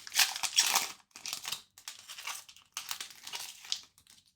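Hockey card pack wrapper being torn open and crinkled: a loud rustle in the first second, then several quieter crinkles.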